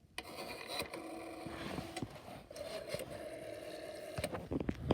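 Western Electric rotary phone dial being wound and spinning back, a faint steady whirr, with handling knocks against the phone near the end.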